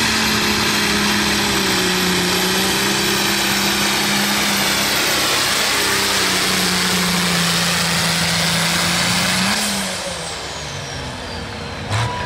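Case IH MX135 super stock pulling tractor's diesel engine running flat out under load against the sled, with a high steady whine over the engine note. About ten seconds in, the throttle comes off at the end of the pull: the engine drops back and the high whine falls away.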